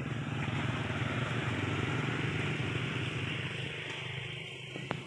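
Engine of a passing motor vehicle, running steadily and then fading away near the end, with a short click a little before it dies down.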